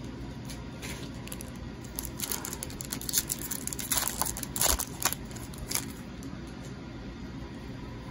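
A Magic: The Gathering booster pack's foil wrapper is torn open by hand, making a run of sharp crinkling crackles about two to six seconds in, over a steady low hum.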